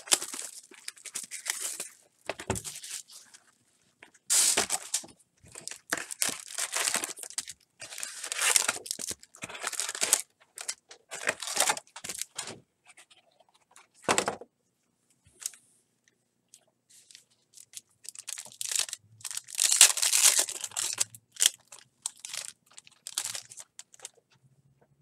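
Foil trading-card packs and their cardboard hobby box being torn open and handled: repeated bursts of crinkling and tearing, with a single knock about fourteen seconds in.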